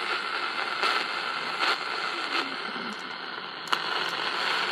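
Hiss and static from a cheap QFX R-9 portable radio's speaker tuned to its first shortwave band, with a few brief crackles and no clear station coming in.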